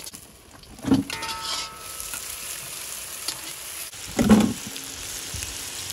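Chopped onions and tomatoes sizzling in hot oil in a large iron kadai, stirred and scraped with a long metal spatula. The sizzle grows louder about a second in. A brief low sound, the loudest in the stretch, comes about four seconds in.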